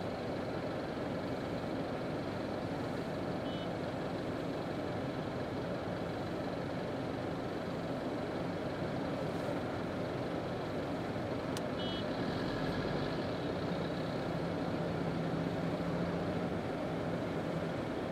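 Slow road traffic close by: the engines of cars, a van and a small truck running at low speed as they pass, a steady noise. A low engine hum comes up and grows slightly louder in the last few seconds as a vehicle draws alongside.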